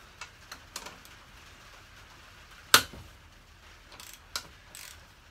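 Scattered metal clicks and clinks of a socket wrench and spanner being fitted to a motorcycle's rear shock mounting bolt, with one loud sharp metallic clack near the middle and a few lighter clicks near the end.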